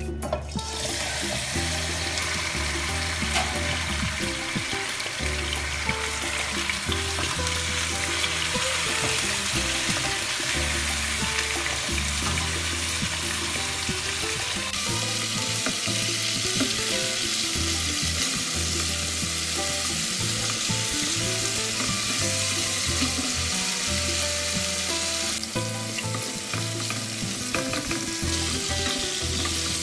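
Raw chicken pieces hitting hot oil in a nonstick wok, the sizzle starting suddenly right at the start and then running on steady and loud as the pieces fry. A wooden spatula stirs and turns them in the oil.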